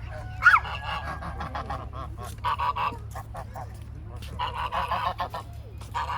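Waterfowl honking: one loud call about half a second in, then runs of quick repeated honks.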